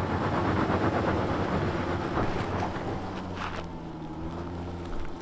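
Range Rover L405's engine working under load as the SUV climbs a steep sandy ledge, its tyres scrabbling and throwing up sand. The noise is loudest in the first couple of seconds, then eases.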